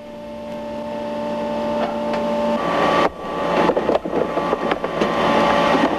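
Factory machinery humming steadily and growing louder. A little over halfway in the hum changes, and a few sharp knocks follow as soft rubber hockey pucks are fitted into a metal mold.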